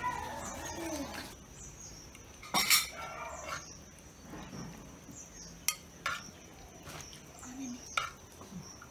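A spoon scraping and clinking against a metal rice pot and clay curry pots while food is served out, with a few sharp clinks, the loudest about three seconds in.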